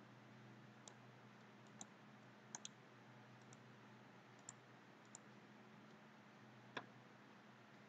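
Faint, scattered clicks of a computer mouse, about eight of them including a quick pair, the loudest near the end, over a low steady hum.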